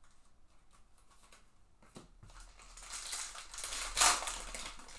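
Trading-card pack being handled and opened: foil wrapper crinkling and cards sliding against each other, building to a loud crackle about four seconds in.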